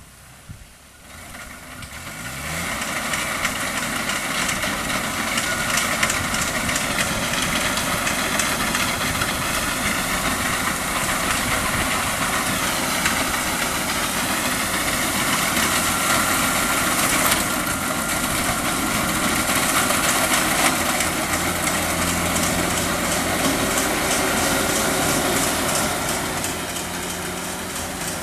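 A combine harvester's engine comes in about two seconds in, rising quickly, then runs steadily and loud, easing off slightly near the end.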